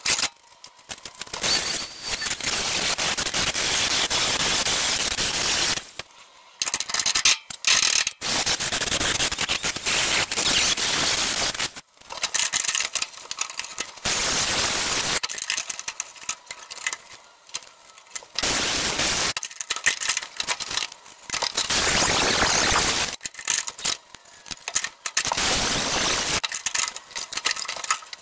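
Handheld power sander grinding the edge of a sheet-steel floor patch panel in repeated bursts of a few seconds, stopping briefly between them; it is being ground down to marked lines for a fit.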